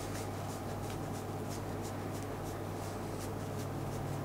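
Cotton swab with metal polish rubbed back and forth over a camera lens's metal focusing scale, in soft scratchy strokes about three a second, over a steady low hum.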